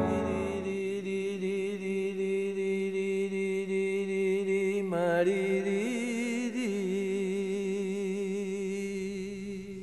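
Music: a low chanted drone on one held pitch, its upper overtones wavering, dipping briefly about halfway through and stepping up for a moment a second later, then fading near the end.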